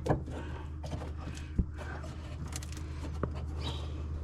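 Handling noise from working loose a Jeep dash wiring harness that is still connected at the back: a few sharp clicks and light creaks over a steady low hum.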